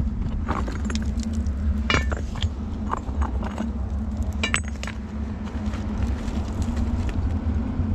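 Small stones and rock chips clinking and knocking as a gloved hand pulls loose fill out of a packed crevice between boulders, a handful of sharp separate clinks over a steady low rumble.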